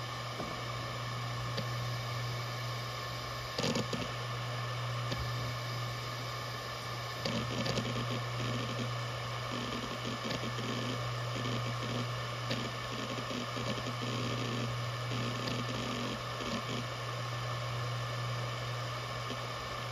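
Maxtor DiamondMax 17 160 GB 7200 RPM hard drive running, its spindle giving a steady hum with the odd buzz that is normal for this model. Its heads seek in short bursts of ticking as it works through file copying and benchmark reads, loudest about four seconds in and again in a cluster around seven to eight seconds in.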